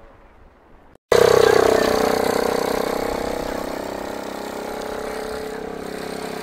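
Ultralight aircraft's propeller engine cuts in abruptly about a second in, loudest at first, then easing to a steady idle with a slight drop in pitch.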